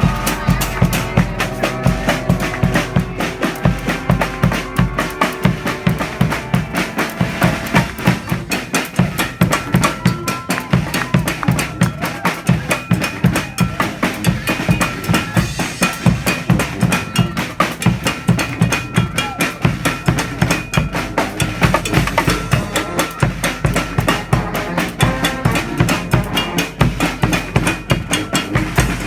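A street marching band's drum section, with snare and bass drums, plays a fast, steady beat. The pitched instruments drop out about a second in, leaving mostly drums with only faint held notes now and then.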